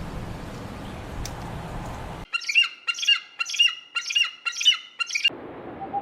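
A bird gives about six harsh squawking calls in quick succession, roughly two a second, each dropping in pitch. They start suddenly after about two seconds of steady outdoor background noise and cut off abruptly.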